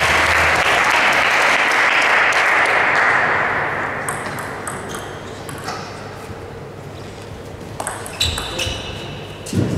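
Applause dying away over the first few seconds. Then the light, sharp pings of a table tennis ball striking the table and bats. A louder thud with a ping comes near the end as a rally gets going.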